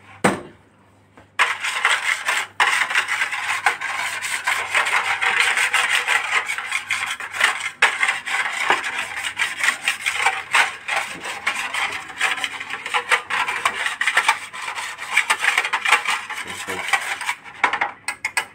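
A utensil scraping and rubbing across the bottom of a small aluminium baking tray, spreading fried tomato sauce and béchamel over it. It starts about a second and a half in and keeps going until just before the end.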